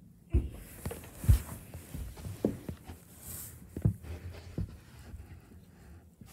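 Handling noise from a phone moved around close against fabric and bedding: irregular soft thumps and knocks with brief rustling, the loudest thump about a second in.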